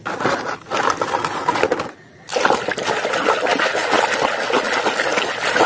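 Water splashing and sloshing as a hand scrubs muddy plastic toys in a tub of soapy water, pausing briefly about two seconds in.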